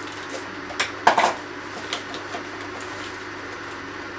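Scissors snipping and a small plastic bag crinkling as it is cut and pulled open, with a cluster of sharp crinkles about a second in and a few lighter ones later. A steady low hum sits underneath.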